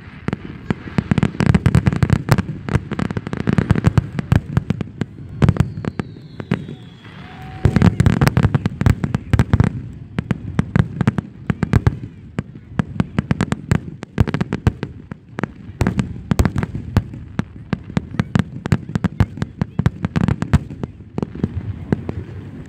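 Fireworks display: aerial shells bursting in rapid succession, a dense run of deep booms and crackling with hardly a gap. A faint high falling whistle is heard about six seconds in.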